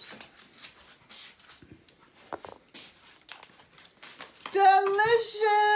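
Faint clinks and scrapes of a metal serving utensil against a steel pasta pot as spaghetti is served. Then, about four and a half seconds in, a loud, long, high-pitched vocal note is held steady.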